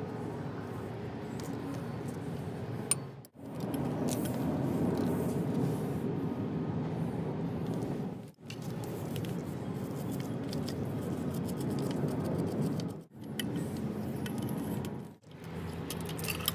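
Hand tools working on a cast-iron jigsaw housing: light metal clinks and scraping over a steady background rumble, which breaks off abruptly several times.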